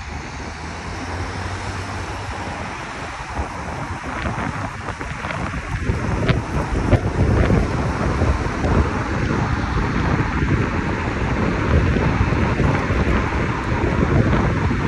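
Wind rushing over the microphone along with vehicle noise, growing louder about six seconds in.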